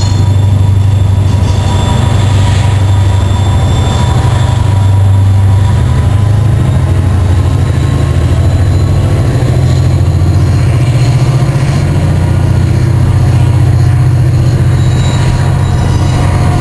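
CSX freight train of autorack cars rolling past close by: a loud, steady rumble of steel wheels on the rails, with faint thin wheel squeal above it.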